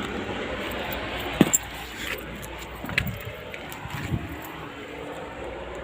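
A few sharp metallic clicks and clinks, the loudest pair about a second and a half in, then single ones near three and four seconds, over a steady background noise.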